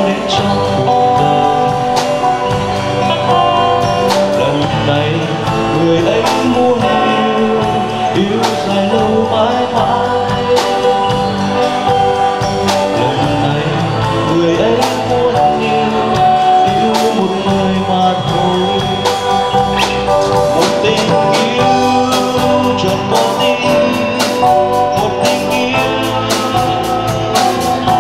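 Live band playing a song with electric guitar, keyboard and drum kit, and a voice singing over it.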